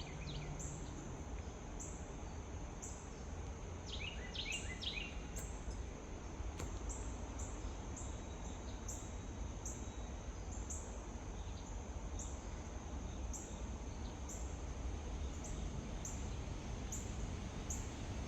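Outdoor ambience: a high, short chirp repeating about once a second over a low steady background rumble, with a brief flurry of bird-like calls about four seconds in.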